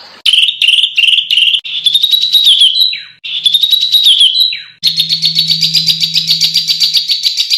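A songbird singing: a few quick chirps, then a fast rattling trill with a warbled dip in pitch, repeated after a brief pause. From about five seconds in comes an even, rapid trill of about a dozen notes a second. The phrases start and stop abruptly, as if spliced together.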